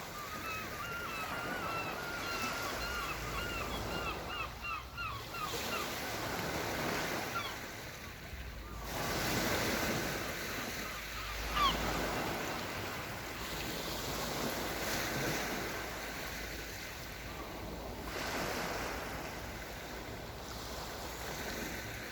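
Small Black Sea waves washing onto the shore, with gusts of wind rumbling on the microphone. A gull calls in a rapid run of short cries, about four a second, for the first five seconds, and gives one sharp cry about halfway through.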